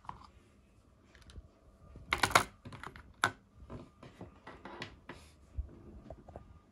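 Disassembled GoPro Hero 8 parts clicking and clacking against a plastic storage box as they are handled and set down, with a cluster of louder clacks about two seconds in and another sharp click a second later.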